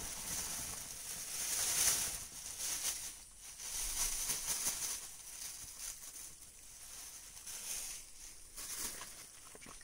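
Thin plastic carrier bags crinkling and rustling in swells as wild mushrooms are tipped from one bag into another.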